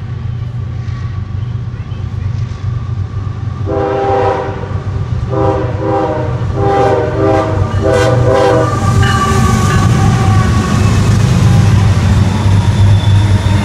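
A CSX freight train's diesel locomotives sound their horn, several blasts of a chord of notes over about five seconds, then run past close by. The low engine rumble and rail noise grow loud as the locomotives go by.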